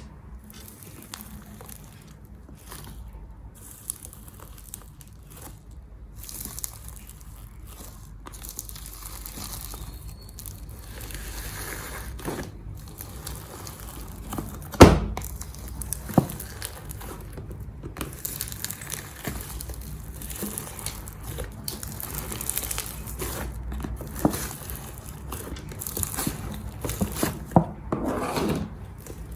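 Slime being squished and stretched by hand, with irregular soft crackles and pops and one sharp, loud click about halfway through.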